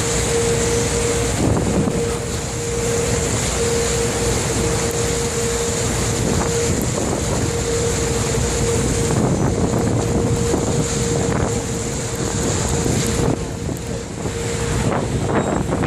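River tour boat's engine running steadily while under way, with a steady hum that stops shortly before the end, and wind buffeting the microphone.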